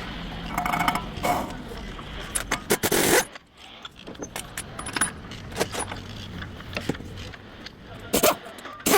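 Metal tools and parts clinking and knocking during a front wheel bearing replacement: scattered sharp clicks, with a short loud burst about three seconds in and a few loud knocks near the end.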